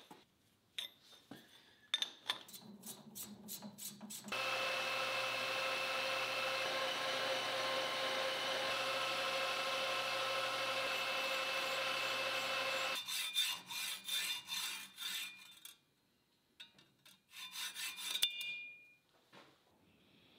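Metal lathe running for about nine seconds while the cutting tool turns down a small metal pin, a steady cutting hiss with a few level tones; it starts and stops abruptly. Before it come clicks and knocks of a wrench on the tool post, and after it a few scattered handling clicks.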